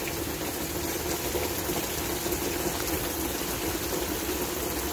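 Heavy rain pouring down, a steady, even hiss of water.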